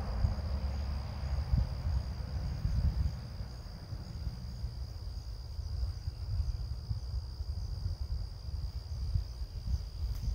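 Crickets singing as one steady high-pitched drone, over a low, uneven rumble.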